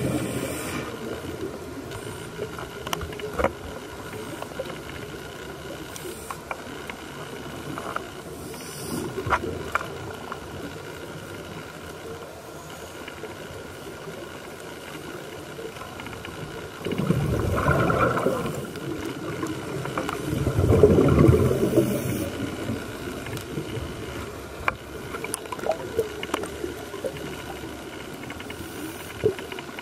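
Underwater sound picked up by a diver's camera: a steady hiss of water with a faint hum and scattered clicks. About two-thirds of the way through come two rumbling, gurgling surges a couple of seconds each, typical of a scuba diver's exhaled bubbles.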